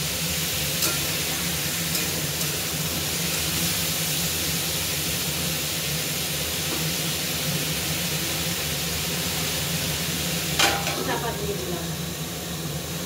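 Pumpkin cubes sizzling in oil in a metal kadai, stirred with a spatula. About ten and a half seconds in, a metal lid clatters onto the pan and the sizzle turns a little quieter.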